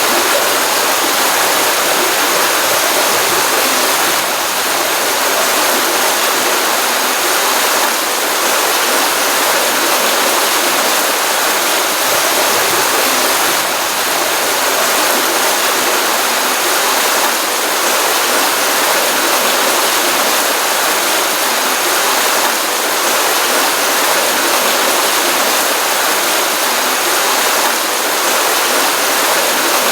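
Stream water running and splashing steadily, a dense even rush with no pauses. The stream feeds a pond and is running after a rainstorm.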